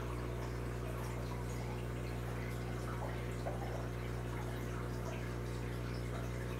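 Aquarium equipment running: a steady low hum, with water trickling and small drips.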